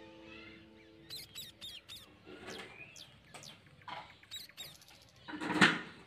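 A run of short, high squeaks and chirps, some sliding in pitch, then, about five and a half seconds in, a loud rough scrape as the orange lid of a clear plastic jar is pressed on.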